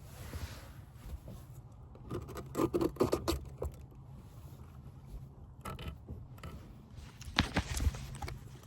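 Hands working on a van's interior panel and wiring: two clusters of clicks and scrapes, the first about two seconds in and the second near the end, over a steady low hum.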